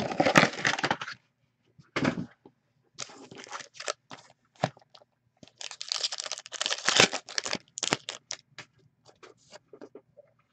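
Foil wrapper of an SP Authentic hockey card pack being torn open and crinkled in several bursts, loudest a little past the middle. Short light snaps and rustles follow as the cards inside are handled.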